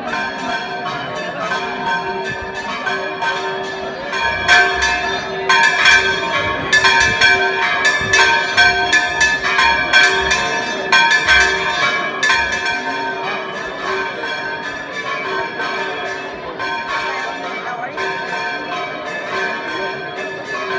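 Church bells ringing in a quick, continuous peal, the strikes densest and loudest through the middle of the stretch, from about four to thirteen seconds in.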